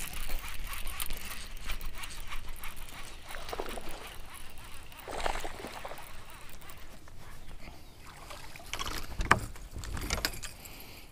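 Water lapping and gurgling against the hull of a bass boat, with scattered clicks and knocks of a baitcasting rod and reel being worked; the sharpest knock comes about nine seconds in.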